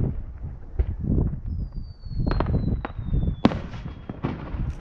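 Fireworks shells bursting in a rapid, irregular series of booms and cracks over a deep rolling rumble; the sharpest crack comes about three and a half seconds in. A thin high whistle runs through the middle, slowly falling in pitch.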